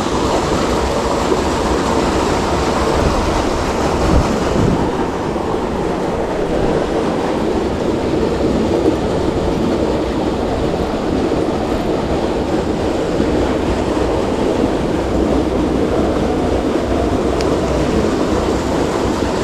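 Creek water rushing steadily over rocks, a continuous loud wash.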